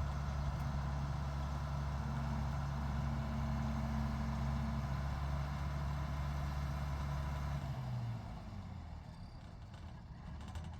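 A large engine idling steadily, a low even hum that dies away about eight seconds in.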